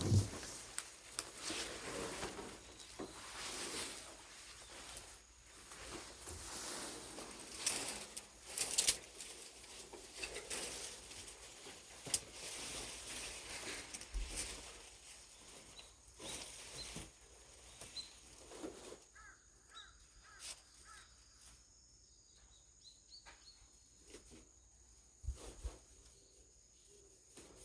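Shade netting being dragged and pulled off a homemade solar collector panel: irregular rustling and scraping of the cloth, with a few sharp knocks. It quietens about two-thirds of the way through, leaving faint short chirps.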